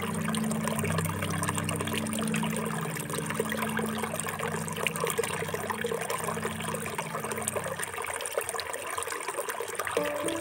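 Water trickling and pouring with a steady, crackly splash, under soft background music that drops out for a couple of seconds near the end.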